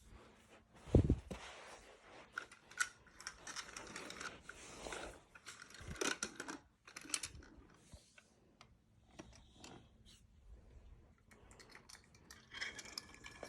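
Irregular handling noise: clicks, light knocks and rustles as small toys and the recording device are moved about, with a louder thump about a second in.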